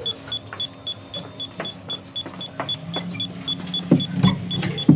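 Phone EMF-meter app beeping steadily, short high beeps about four a second, over a low hum. Two knocks near the end.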